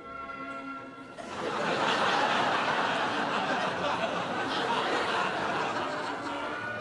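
Studio audience laughing, the laughter swelling up about a second in after a few held notes of music and carrying on steadily.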